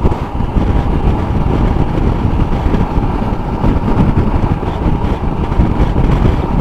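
Motorcycle running at road speed, the engine and road noise mixed with wind buffeting the microphone in a steady, dense rumble.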